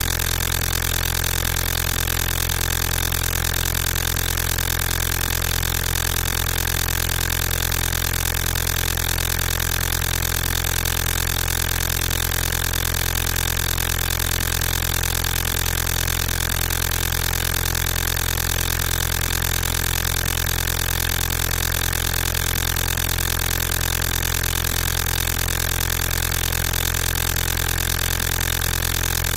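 A loud, steady, unchanging hum made of many fixed tones, with no rhythm and no change in pitch or level.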